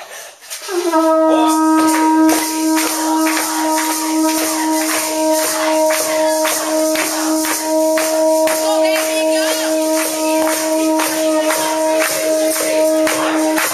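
Conch shell trumpet blown in one long, steady note on a single breath, starting about a second in with a slight upward scoop and held for about thirteen seconds. A crowd claps along in a steady beat throughout.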